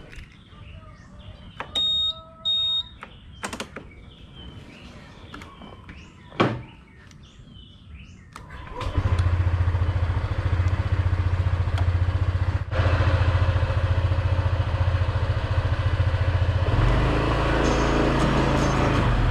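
Birds chirping, two short electronic beeps about two seconds in and a sharp knock a few seconds later; about nine seconds in the Honda ADV scooter's single-cylinder engine starts and runs steadily, changing pitch near the end as it moves off.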